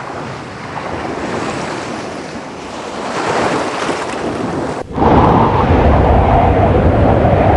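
Wind noise buffeting the microphone outdoors. It cuts off sharply about five seconds in and comes back much louder and heavier in the low end.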